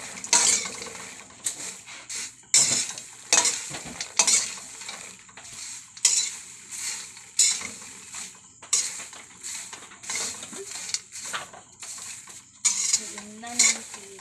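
Popped popcorn being stirred in a pot with a spoon to mix in seasoning: rustling strokes of the spoon scraping through the popcorn and against the pot, roughly one a second.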